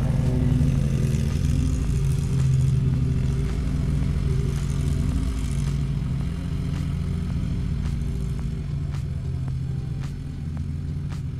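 Riding lawn mower engine running steadily under load.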